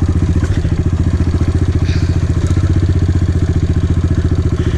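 Dirt bike engine running steadily while being ridden, an even, fast pulsing beat.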